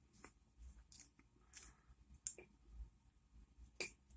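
Faint, scattered metallic clicks from an ASSA Ruko padlock being handled as its shackle is pushed back down to lock, with a sharper click a little under four seconds in.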